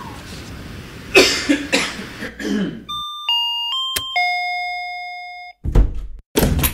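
Electronic sound collage: a few crackling noisy strikes, then a run of pure electronic beeps that jump from pitch to pitch like a chime, with a sharp click among them, the last tone held and slowly fading. Two loud noisy bursts follow near the end.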